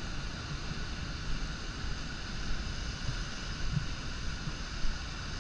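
Steady rushing of white-water rapids pouring over the brink of Horseshoe Falls, mixed with wind buffeting the microphone.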